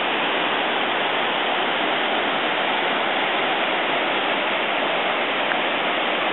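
Waterfall pouring into a rock pool, a steady rush of falling water; the falls are pumping.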